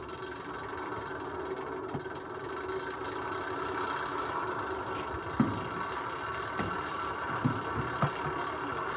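Small engine running steadily, with a few short clunks about halfway through and near the end.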